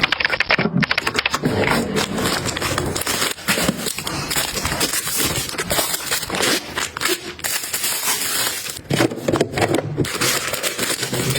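Packaging and containers being handled at close range: dense crinkling and rapid clicking with some scraping.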